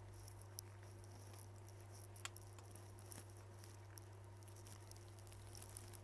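Near silence: a steady low electrical hum with a few faint, scattered clicks and taps.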